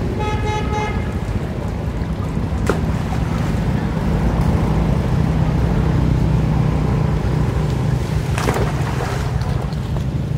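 Floodwater flowing through the flooded forest: a steady low rush. A brief pitched tone sounds in the first second, and two sharp knocks or splashes come about three seconds in and near the end.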